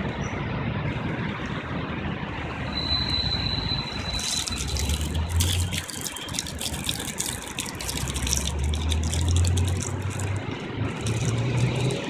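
Steady city road-traffic noise from passing cars and trucks. A low engine hum swells a few times, a thin high whine is heard briefly about three seconds in, and there is scattered crackling from about four seconds on.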